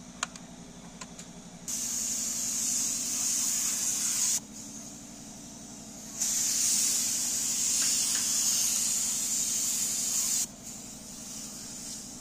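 Air-fed paint spray gun spraying a car door in two long passes, each starting and stopping abruptly: the first about two and a half seconds long, the second about four seconds after a short pause. A steady low hum runs underneath throughout.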